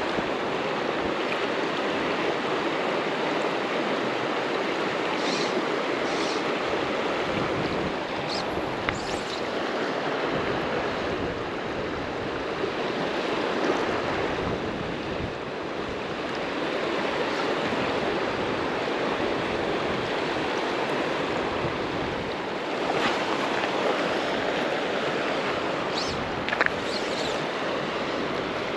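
South Platte River water rushing steadily over its bed, an even continuous wash.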